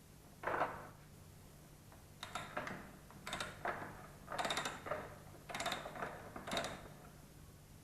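Wrenches working the rear axle nut of a KTM Duke 390 loose: one short scrape, then five clicking, scraping wrench strokes about a second apart.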